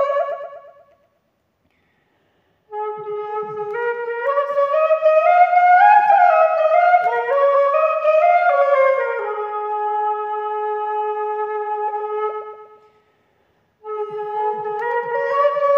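A flute playing a slow solo melody: phrases climb step by step and fall back, one settling into a long held low note, with two short silences between phrases.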